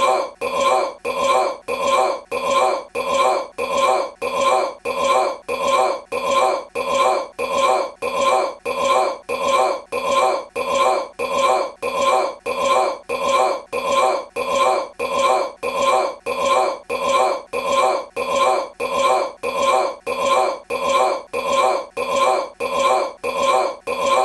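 A man's short belch played on a loop, the identical burp repeating at an even beat of about three every two seconds.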